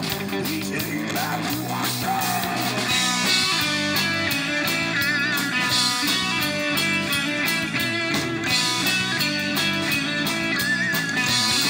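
Live rock band playing an instrumental passage on electric guitars, bass guitar and drum kit.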